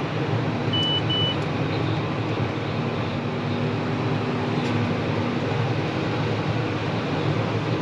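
Grain-cart tractor running steadily, heard from inside the cab. Two short high beeps sound about a second in.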